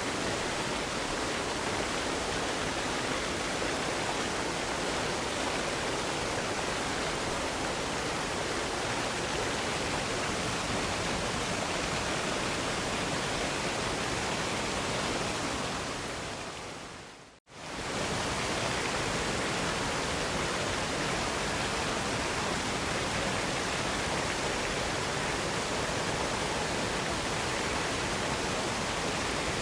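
Waterfall rushing in a steady, even roar of falling water. About halfway through it fades out quickly to silence and straight back in, where the recording loops.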